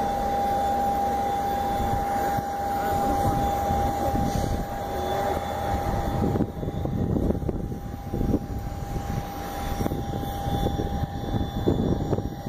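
Jet aircraft engine noise: a steady whining tone over a low rumble, easing off somewhat about halfway through.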